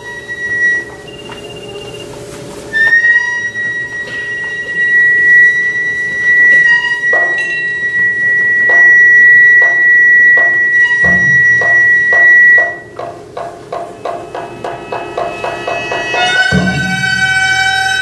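Instrumental music in Tang court banquet (yanyue) style. A flute holds one long high note while evenly spaced sharp strikes come faster and faster, then a bowed string instrument comes in with a rich, sustained tone near the end.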